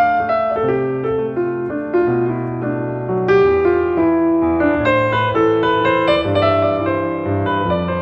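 Background piano music: a melody of struck, decaying notes over longer-held bass notes.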